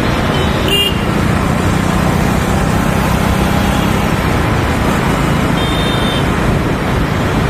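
A motorcycle riding in busy city traffic: a loud, steady rush of engine and road noise. Two brief high tones cut through, about a second in and again around six seconds.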